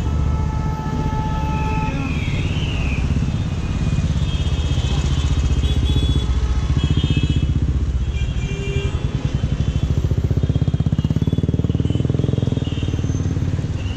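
Busy city street traffic: motorcycle and car engines running close by, with short horn tones now and then, mostly near the start. From about nine to twelve seconds in, a close engine's fast, even pulsing comes to the fore.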